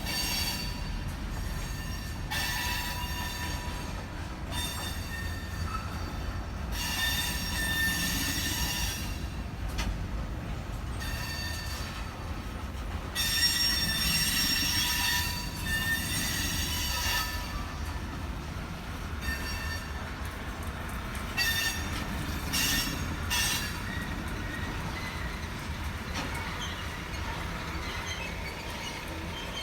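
Freight train tank cars rolling past on steel wheels over a steady low rumble, with several long, high-pitched wheel squeals coming and going every few seconds.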